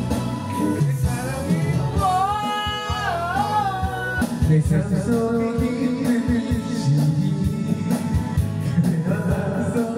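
Karaoke: a voice singing a melody over a karaoke backing track, with the pitch wavering on held notes.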